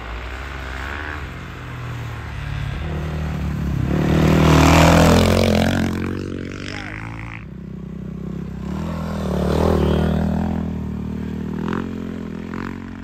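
Dirt bike engine revving and easing off as the bike rides across snow, loudest as it passes close about four to five seconds in and again near ten seconds.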